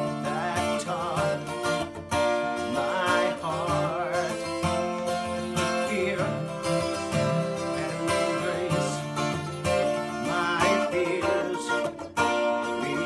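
Guitar played in a steady accompaniment, with a man singing a worship song over it.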